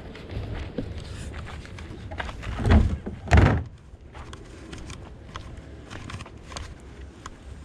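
Two loud thumps less than a second apart, near the middle, like a lid or door being knocked shut. Light clicks and handling noises come before and after them.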